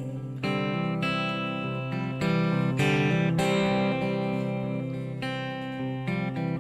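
Electric guitar played with a clean tone, strumming chords that change every second or so, with no singing over it.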